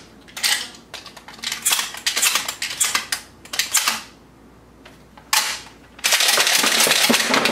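Dummy shotgun shells being handled and loaded into a shotgun: a run of quick clicks and clacks as the shells go into the gun, a pause, one sharp click, then a longer rough rattling rustle near the end as more shells are pulled from the belt carriers.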